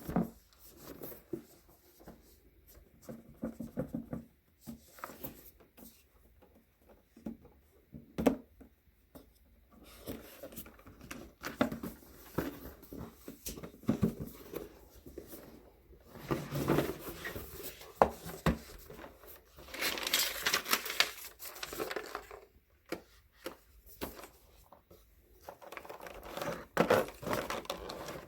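Irregular handling sounds: scattered clicks and knocks, with stretches of rustling and crinkling.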